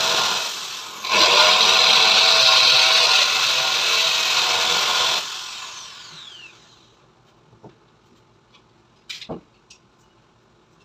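Corded electric drill running at full speed as it bores into the wall, stopping briefly about half a second in, then running again for about four seconds before the trigger is released and it winds down with a falling whine. A few light knocks follow.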